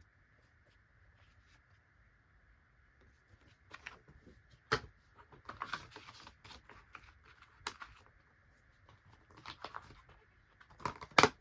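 Plastic DVD cases and paper inserts being handled: scattered clicks, taps and rustles, starting a few seconds in, with sharp clicks about five seconds in and near the end.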